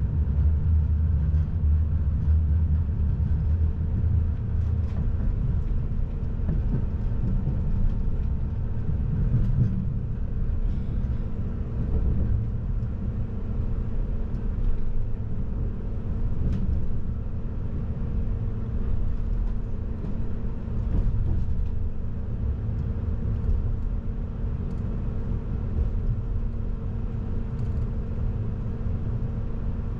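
Inside the carriage of an electric passenger train running along the track: a steady low rumble with a constant hum underneath and a few faint ticks.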